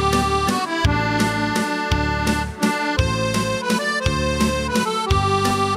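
Accordion music: a melody of held notes over low bass chords that come about twice a second.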